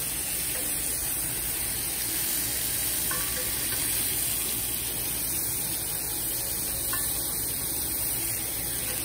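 Thin slices of fatty meat sizzling steadily on a hot tabletop grill plate, with a couple of faint clicks, about three and seven seconds in.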